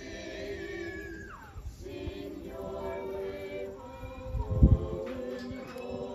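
Group of voices singing a cappella in harmony, holding long chords. A brief low thump a little past the middle is the loudest moment.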